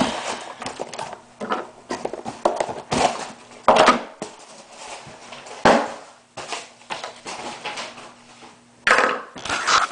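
Packaging being handled: irregular rustling of paper and a cardboard box, with three louder knocks and rustles, about four seconds in, near six seconds and near the end.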